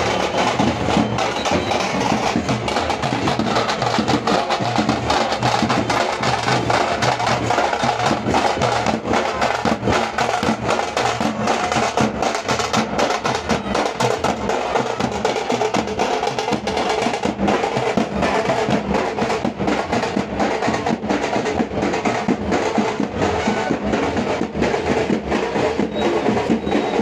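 Drums beaten in a fast, steady rhythm of sharp, closely spaced strokes.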